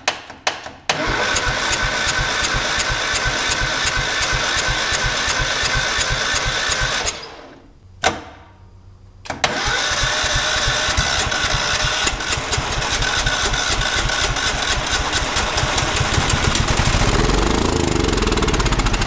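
A few sharp clicks, then the electric starter cranks a Kohler lawn-tractor engine over steadily for about six seconds. The starter had been stuck and was freed by prying on its pinion teeth. After a short pause it cranks again for about ten seconds, and near the end the sound grows deeper and louder as the engine begins to fire.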